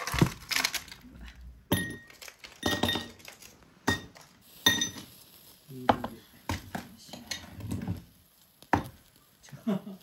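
Sharp metallic clinks and taps, several with a short ring, as metal tongs pick up pork slices and set them on a wire grill over charcoal.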